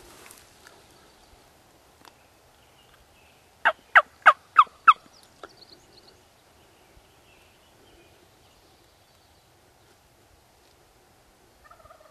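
Five hen-style turkey yelps in a quick series, about a third of a second apart, each note sliding down in pitch, heard about four seconds in.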